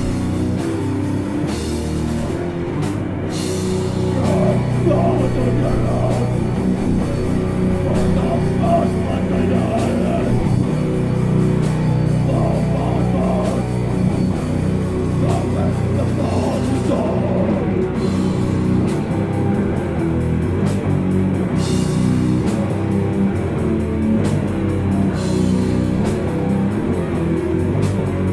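Death metal band playing live: distorted guitars and a drum kit in a dense, unbroken wall of sound.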